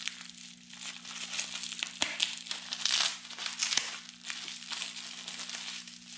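Plastic packaging crinkling as hands handle a small plastic bag and unwrap a pink anti-static bubble-wrap bag. The crackles are irregular and loudest about three seconds in.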